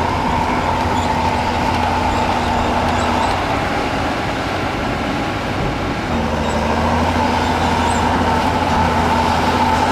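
Diesel engine of heavy earthmoving machinery running steadily under load, easing slightly about four seconds in and picking up again about six seconds in.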